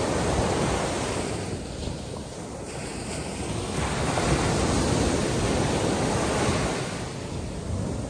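Ocean waves breaking and washing onto the beach, swelling and easing, with wind buffeting the microphone.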